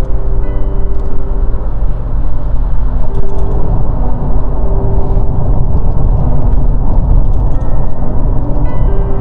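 A car being driven, heard as a steady low rumble of engine and road noise. Background music sounds faintly over it.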